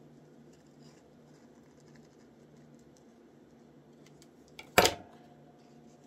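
Faint snips and rustles of paper being cut with scissors over a low steady hum, with one loud sharp clack nearly five seconds in.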